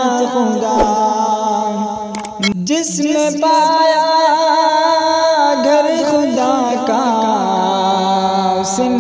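A male voice singing an Urdu naat (Islamic devotional song) in a wavering, ornamented melody, with a short break about two and a half seconds in before the singing goes on.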